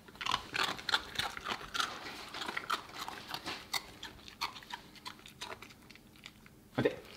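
Borzoi puppy chewing and crunching a small treat: a quick, irregular run of crisp crunches that thins out after about five seconds.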